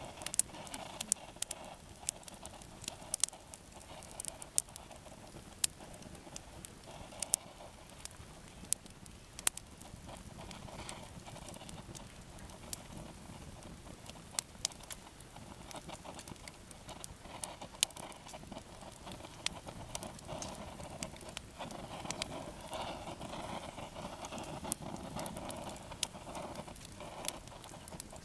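Campfire of split logs crackling, with irregular sharp pops from the burning wood.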